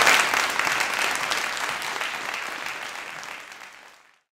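Audience applause, fading out steadily into silence about four seconds in.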